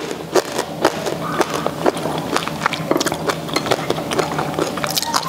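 Close-up chewing of crispy roast pork crackling: a run of irregular sharp crunches, several a second. The skin is crisp and light, not hard.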